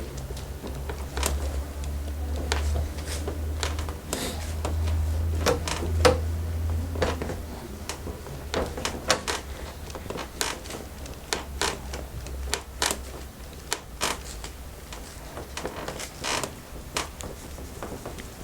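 Hands massaging a client, giving irregular soft clicks and rustles of skin and fabric contact, over a low rumble for roughly the first eight seconds.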